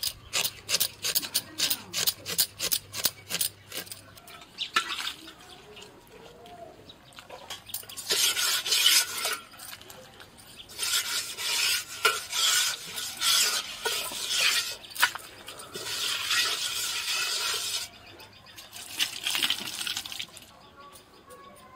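Onion being sliced quickly against a fixed curved kitchen blade (hansua/boti), a run of fast crisp cuts about six a second for the first few seconds. Later, water splashing and sloshing in several long stretches as a hand scoops water from a muddy hole to smear mud onto the outside of a metal handi.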